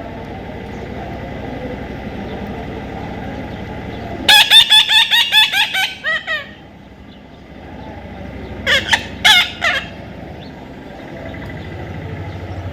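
A parrot calling: a fast run of about ten harsh, high notes about four seconds in, then three or four more a few seconds later.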